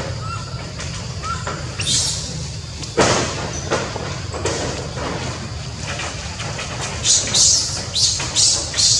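Baby macaque screaming while an older macaque pins it down: a loud cry about three seconds in, then a quick run of short, high shrieks in the last two seconds.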